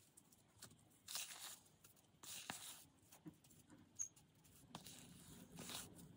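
Near silence, broken by a few faint, short scraping and rustling strokes from hand-mixing and handling sugar body scrub.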